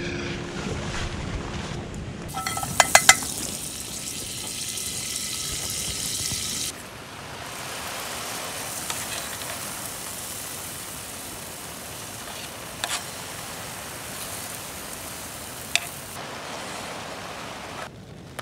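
Pancake batter frying in hot oil in a pan, a steady sizzle that changes abruptly at several cuts. A few sharp, ringing clinks of a metal utensil about three seconds in.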